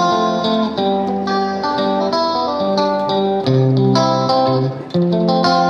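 Music: a plucked guitar melody over a bass line, each note ringing briefly, with a phrase that repeats every few seconds.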